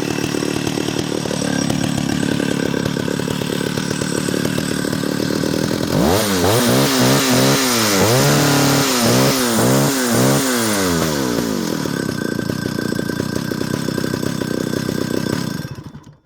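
Stihl 076 two-stroke chainsaw idling, then revved up and down in a quick series of throttle blips from about six seconds in, settling back to idle and cutting off suddenly near the end. It runs fat (rich), as the owner says.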